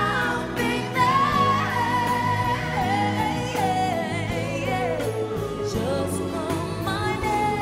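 Live singing with a band: a lead voice holds long notes with vibrato and steps down in pitch through the phrase, over a steady band accompaniment.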